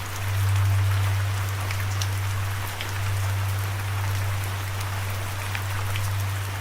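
Steady rain, with individual drops ticking sharply on a hard surface such as a window pane, over a constant low hum.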